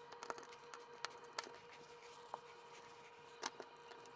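Faint, scattered clicks and small scrapes of a screwdriver turning the screws of a plastic outlet cover plate, with a pair of slightly louder clicks about three and a half seconds in.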